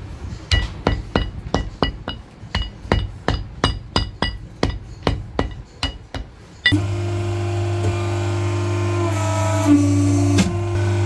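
Hammer blows on a steel former in a cricket ball workshop, about three a second, each with a metallic ring, shaping the red leather of a ball. About two thirds of the way in, these give way to the steady hum of an electric ball-finishing machine's motor.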